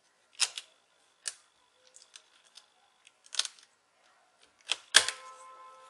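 A few sharp clicks and taps of hands handling parts inside an opened laptop, around the fan, heatsink and cables. The loudest knock comes about five seconds in and rings on briefly with a metallic tone.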